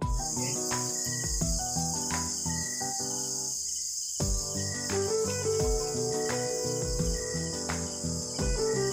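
Background music with a steady beat, over a constant high chirring of crickets.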